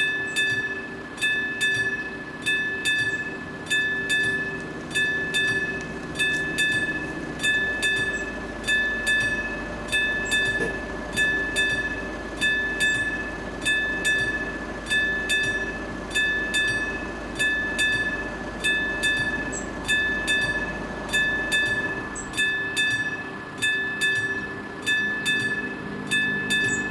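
Level-crossing warning bell on an AŽD 71 signal ringing in an even rhythm, a little over one strike a second, each strike ringing on briefly: the crossing is closed for an approaching train. A low rumble builds under it about six seconds in and fades away again after about twenty-two seconds.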